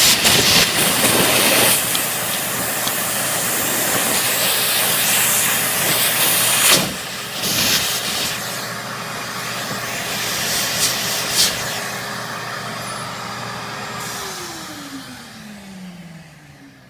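Wet/dry vacuum running with a loud rushing hiss as its hose draws out water and calcium deposits from the water heater tank, with a few brief knocks. About fourteen seconds in it is switched off and its motor hum falls in pitch as it winds down.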